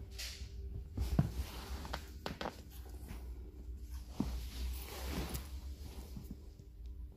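Soft rustling and scraping with a few light knocks as a leashed cat in a harness moves and climbs about on a vinyl-covered sofa, over a steady low rumble.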